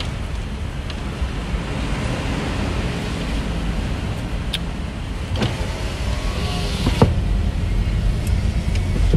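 Steady low rumble of road and engine noise inside a moving car's cabin, with a few sharp clicks about halfway through.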